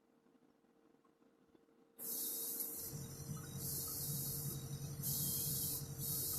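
Airbrush spraying acrylic paint in four short bursts, starting about two seconds in, over a steady low hum that sets in just after the first burst.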